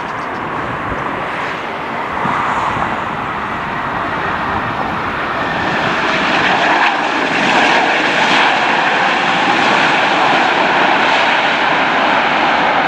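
Jet engines of a heavy wide-body airliner passing close by, a loud rushing roar that grows steadily louder over the first seven or so seconds and then holds.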